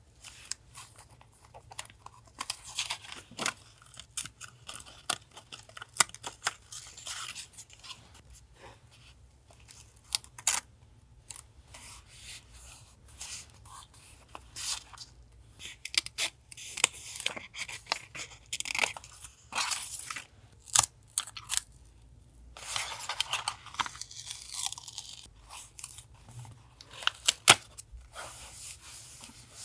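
Paper being handled close to the microphone: crinkling, rustling and tearing in several longer stretches, broken up by small sharp taps and clicks.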